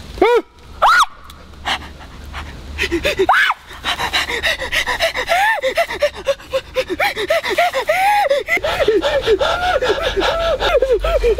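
A man's voice crying out: two loud shouts near the start, then from about four seconds in a run of short, breathless gasping cries that rise and fall in pitch, about three a second.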